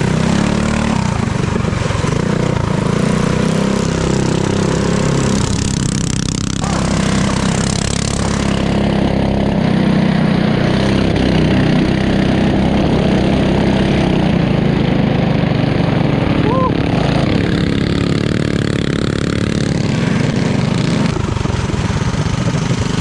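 Small gas engine of a mini trike running steadily under throttle as it is ridden.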